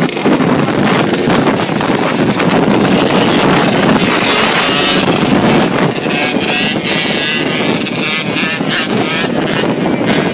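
Dirt bike engines running at riding speed, with wind buffeting the microphone.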